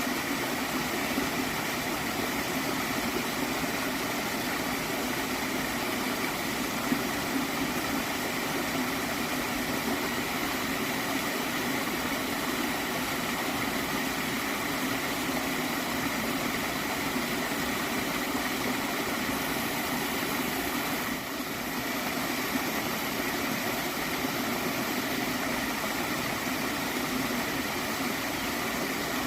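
Small stream of water flowing and gurgling steadily.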